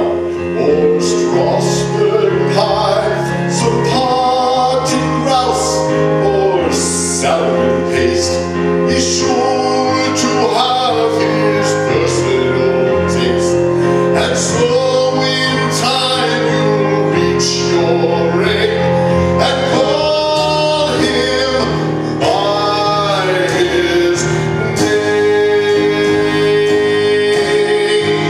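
A male singer singing a slow musical-theatre song over instrumental accompaniment.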